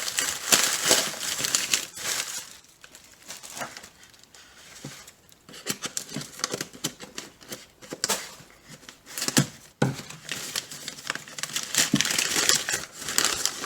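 Packing material crinkling and rustling as a mailed package is unwrapped by hand, in irregular bursts with short crackles, going quieter for a few seconds a couple of seconds in before picking up again.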